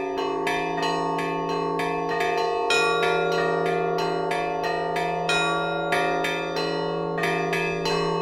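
Russian-style church bell ringing (zvon): small bells struck in a quick, even pattern of several strokes a second over the steady hum of larger bells, with a heavier bell stroke about three seconds in and again near six seconds.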